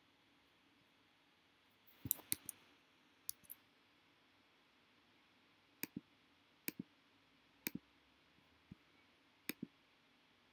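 Sharp clicks of a computer pointer button, mostly in quick pairs. A cluster comes about two seconds in, then a pair about every second, over faint steady room noise.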